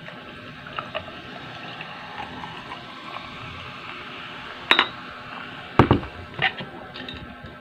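Cola poured from a glass bottle into a glass jar full of ice, a steady pour with small scattered clicks of ice. Near the end of the pour there is a sharp glassy clink, then a heavy thump as the bottle is set down on the table, and a smaller knock after it.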